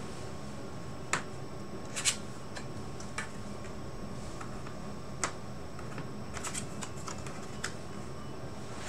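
Paper game cards being handled and laid down on a tabletop: a scattering of light, sharp taps and clicks, the two loudest in the first couple of seconds and a small cluster near the end, over a faint steady room hiss.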